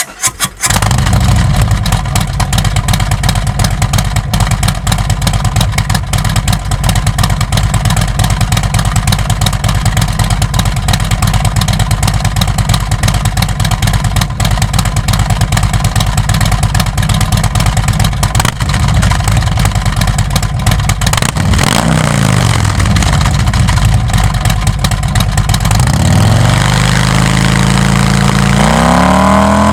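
Harley-Davidson Milwaukee-Eight V-twin with an S&S 465 cam, breathing through SVT Jackhammer slip-on mufflers, starting up and then idling loud with a rhythmic pulse. In the last several seconds it is revved a couple of times, rising and falling.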